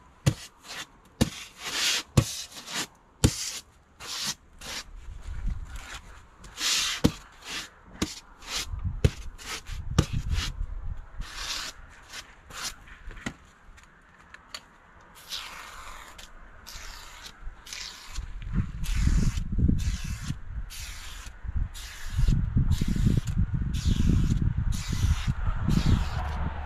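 Expanded polystyrene insulation board being rubbed and scraped in many short, quick strokes, with sharp clicks among the first strokes. A deeper rumble joins the strokes in the second half.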